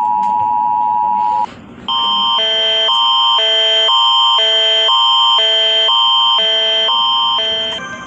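Emergency Alert System attention signal: a steady two-note tone that cuts off about a second and a half in. After a short gap, a different alert tone alternates between two chords of several notes, about twice a second, until near the end.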